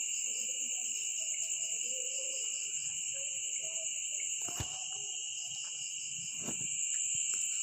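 Insect chorus, crickets trilling steadily at two pitches, one high and one lower. A faint single click about four and a half seconds in.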